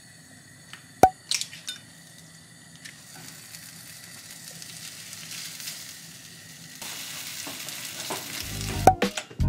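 An egg and slices of Spam frying in oil in a nonstick pan: a steady sizzle that builds, then gets louder about two-thirds of the way through. There is a sharp click about a second in, and music comes in near the end.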